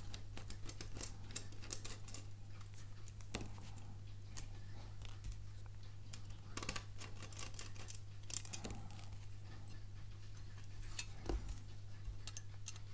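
Small screwdriver working the tiny screws of an aluminium phone bumper case, with scattered light metallic clicks and taps as the frame pieces are handled.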